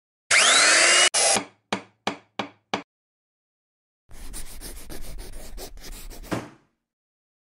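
Workshop sound effects for an animated logo: about a second of loud, harsh power-tool cutting noise with a shifting pitch, then four quick knocks, and after a pause about two seconds of rattling, scraping clatter.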